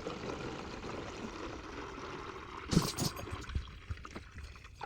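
Juice being poured into an empty plastic gallon milk jug, a steady stream of liquid, with a single knock a little past halfway.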